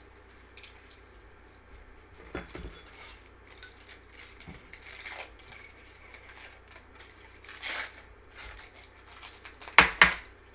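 Dry baking ingredients being tipped from small bowls and a container into a stainless steel mixing bowl: scattered light clinks and rustles, a brief hiss of pouring about three-quarters of the way in, and two sharp knocks of a container against the bowl near the end.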